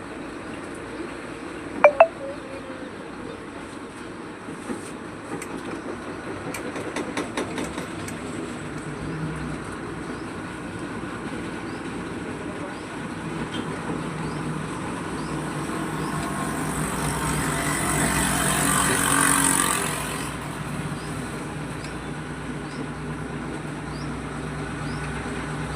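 Motor vehicle sounds: a steady low engine hum, with a vehicle passing close that grows louder to a peak a little before 20 seconds in and then falls away. A sharp double bang comes about 2 seconds in, and a run of light clicks follows a few seconds later.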